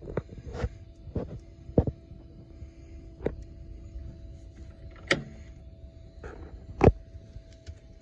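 A faint steady hum under irregular knocks and clicks of handling inside a skid steer's cab. The two loudest knocks come about two seconds in and near the end.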